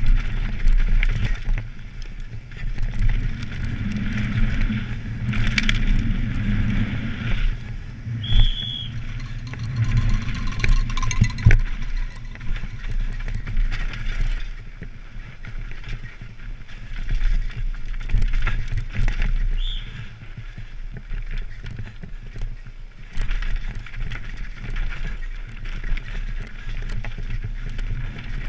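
Onboard sound of a downhill mountain bike ridden fast down a rough dirt track: a constant low rumble with the bike rattling and knocking over bumps and roots. Two short high squeaks cut through, one about 8 seconds in and one about 20 seconds in.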